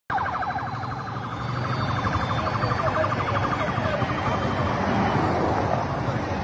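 Fast warbling siren of a motorcade escort, cycling several times a second, fading out about halfway through. A steady rushing noise of traffic continues under it and after it.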